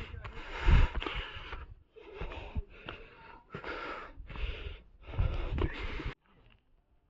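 A person's heavy breathing close to the microphone: about nine loud breaths in quick succession, stopping suddenly about six seconds in.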